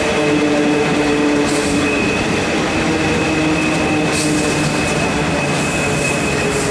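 Steam locomotive A10 No. 6, built by Neilson in 1865, running along the track, heard from its tender: a steady, loud rattle and rumble of wheels and running gear, with a thin, high steady tone over it.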